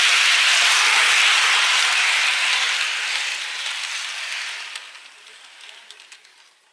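Märklin model train rolling past on its track: a steady rushing rattle of wheels on rails that fades away over the last few seconds as the train moves off, with a few faint clicks near the end.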